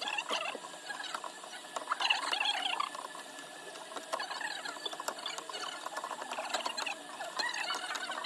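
Hand tools working on an iPhone 12 Pro Max during a back-glass repair: irregular squeaky scratching with many light clicks, busiest about two seconds in and again near the end.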